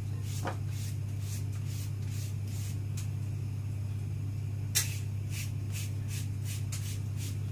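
A vegetable peeler shaving thin strips off a cucumber in short, quick scraping strokes, a few each second. The strokes stop for about a second and a half midway and then start again with one sharper stroke. A steady low hum runs underneath.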